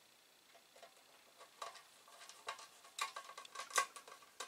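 Light metallic clicks and taps as a hand handles the steel case of an Amiga 2000 power supply. They come irregularly after about a second and a half, and the loudest is near the end.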